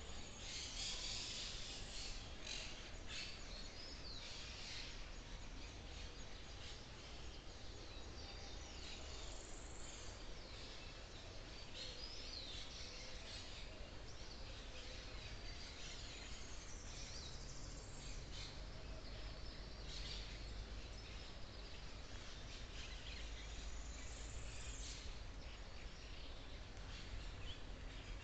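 Forest ambience: wild birds give short, scattered chirps and whistled calls, some swooping up or down in pitch, over a steady low rumble and a soft even hiss.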